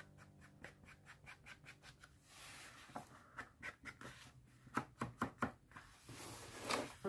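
Quick, irregular taps of an ink dauber dabbing ink along the edge of a journal page, a few per second, with two longer brushing sounds of the applicator or paper.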